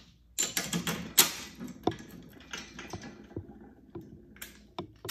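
Small metal Hurst shifter parts clicking and clinking as they are picked up and handled, with one sharper clack about a second in and a few lighter clicks near the end.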